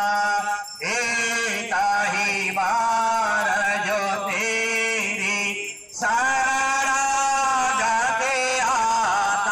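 Male voice chanting a Hindu devotional aarti hymn in long, held, melismatic notes, breaking off briefly for breath just under a second in and again about six seconds in.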